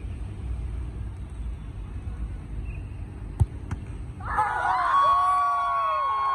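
A football kicked hard in a penalty shootout, one sharp thud about three and a half seconds in, with a second, fainter knock just after. Then a group of players breaks into shouting and long, held cheering screams.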